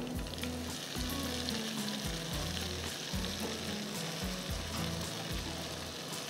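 A hot-oil tempering (baghaar) of fried onions, red chillies and curry leaves sizzling steadily as it is poured into a pot of sambar.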